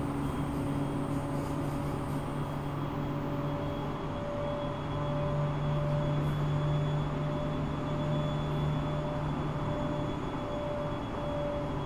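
Running sound of a JR 701-series electric multiple unit on the move, heard aboard motor car KuMoHa 701-5009 with its original, unrenewed VVVF inverter: a steady electric hum from the motors and inverter over the rumble of wheels on rail. A higher tone drops out about three seconds in.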